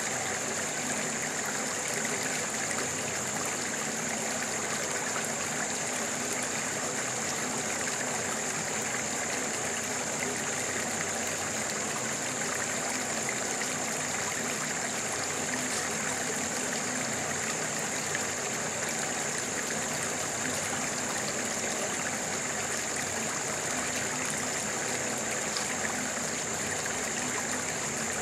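Stream water running steadily over rocks, an even rushing trickle with no breaks. A steady thin high-pitched hiss sits on top throughout.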